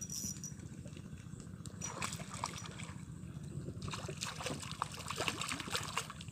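A hooked hampala thrashing and splashing at the water surface beside the boat as it is played in, the splashing getting busier in the second half.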